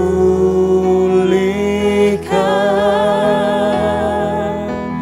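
Indonesian worship song: a voice sings long held notes with vibrato over a steady instrumental backing.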